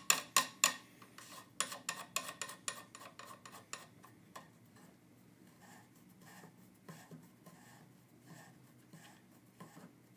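Metal barrel nut being spun by hand onto a rifle upper receiver's threads: a quick run of sharp metallic clicks, about six a second, loudest in the first second. The clicks thin out after about four seconds into faint ticks and rubbing.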